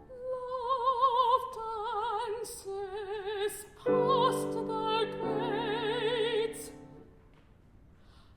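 A high singing voice holding long notes with a wide, fast vibrato in Peking Opera style, joined by sustained piano chords about four seconds in. The phrase dies away about seven seconds in.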